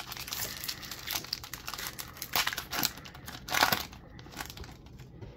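Foil wrapper of a Pokémon TCG Shining Fates booster pack being torn open and crinkled by hand: a run of short crackling rustles, loudest a little past the middle and quieter near the end.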